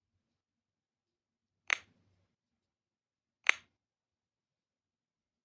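Two short, sharp clicks, one about a second and a half in and another about two seconds later, with silence between.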